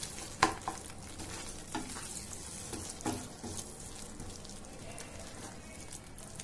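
A wooden spatula stirs thick grated bottle-gourd halwa in a kadhai, making soft scrapes and knocks against the pan every second or so, the loudest about half a second in. The cooking mixture keeps up a low, steady sizzling hiss underneath.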